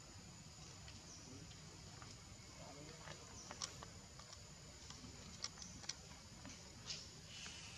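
Quiet outdoor background with a handful of faint sharp clicks in the second half.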